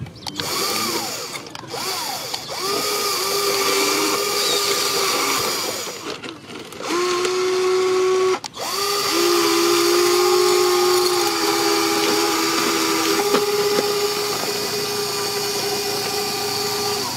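Electric motors of a radio-controlled model excavator whining steadily as they drive its tracks over a rail and ballast. The pitch climbs as the motors spin up, and the sound stops briefly twice, about 6 and 8.5 seconds in. For a few seconds near the middle, two motors run together at slightly different pitches.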